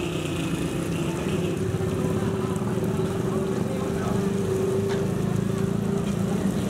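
A steady, low mechanical drone like a running motor, with a held hum that fades out about six seconds in.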